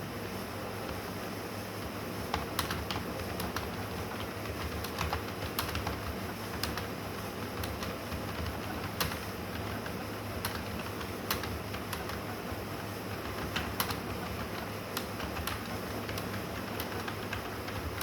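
Typing on a computer keyboard: keys clicking in an uneven stream, with some louder clacks every second or so, over a steady low hum.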